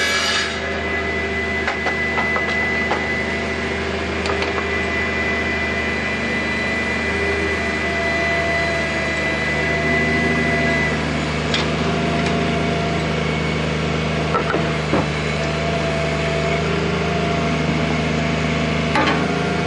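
Bobcat 320 mini excavator's diesel engine running steadily while it digs, with scattered knocks and scrapes from the bucket working the soil and turf.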